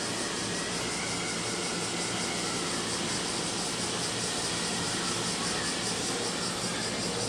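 A steady, even mechanical drone with hiss that does not change.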